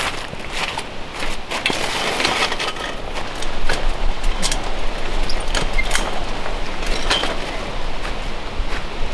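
Footsteps crunching and shuffling through a thick layer of dry fallen leaves, with many short crisp crackles.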